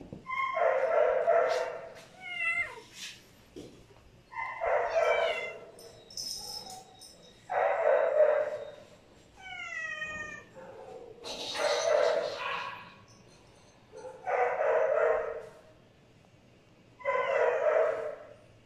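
A dog and a cat meeting, with about six loud drawn-out animal cries, each about a second long and roughly three seconds apart, and a few short falling whines between them.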